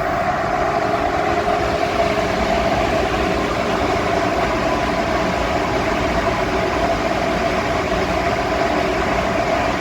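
Grain bin dryer fan running after being repaired: a loud, steady rush of air with a constant hum in it, blowing drying air up through the bin.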